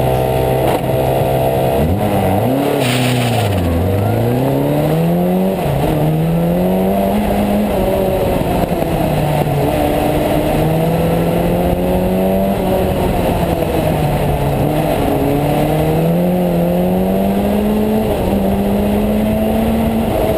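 Formula Ford single-seater's engine heard from on board during an autocross run. It holds a steady pitch at first; from about two seconds in, the revs climb, drop and climb again over and over as the car accelerates and slows through the course.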